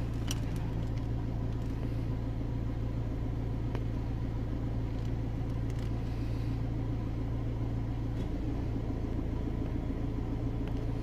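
Steady low hum of an idling vehicle engine, unchanging throughout, with a few faint clicks.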